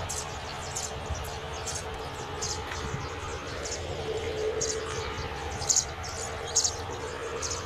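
Insects chirping: short, high, buzzy chirps repeating irregularly about twice a second, over a low rumble and a faint steady hum.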